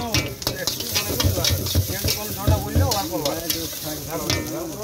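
Metal spatula scraping and knocking against a wok in quick, irregular strokes while chopped onion and chicken stir-fry in sizzling oil over a gas burner.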